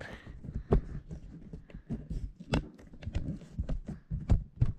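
Handling noise from a phone camera being moved and set in place: irregular knocks, taps and rubbing against the device, a dozen or so, with a low rustle between them.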